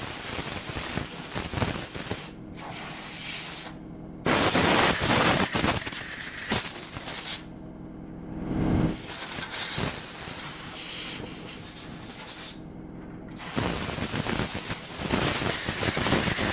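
Compressed air blown in five long hissing bursts with short pauses between them, clearing grinding dust out of the bandsaw's ceramic blade guides.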